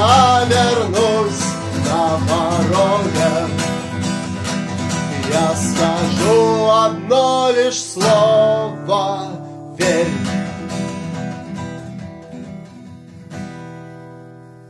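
Music: acoustic guitar strumming chords with a melody line above. The song ends with a hard chord about ten seconds in, then a last chord that rings on and fades away.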